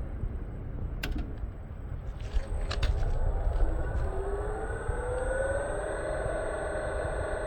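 Electric drive motor of a welding turning roll set being switched on with a few clicks, then spinning up as its whine rises in pitch over about two seconds and settles at a steady speed, over a low rumble.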